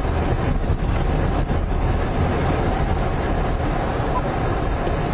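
Steady road and engine noise of a moving police patrol car, heard from inside the cabin.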